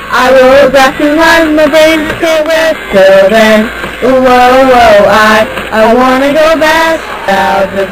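Pop song with a backing track, sung by young voices holding and bending melodic notes continuously.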